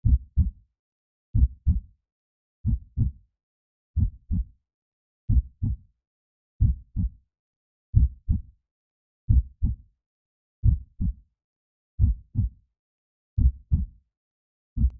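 Heartbeat sound effect: low double thumps (lub-dub) repeating evenly, about one beat every second and a third, roughly 45 a minute, with silence between beats.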